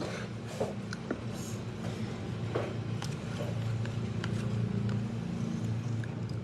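A plastic spoon scrapes and clicks against a paper takeout box as rice is scooped up and eaten, with a few sharp clicks scattered through. A steady low hum runs underneath.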